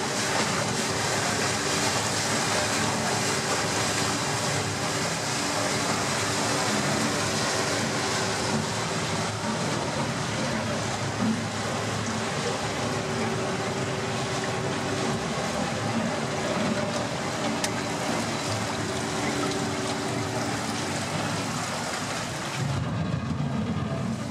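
Vaporetto water bus under way: its engine drones steadily beneath a constant wash of water noise. Near the end the high hiss drops away.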